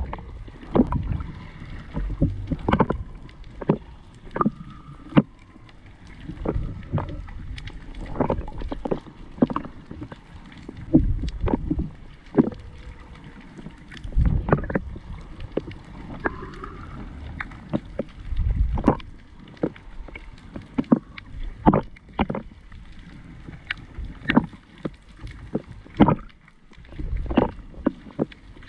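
Muffled water noise picked up by a camera underwater: a low rumble of moving water with frequent irregular knocks and clicks.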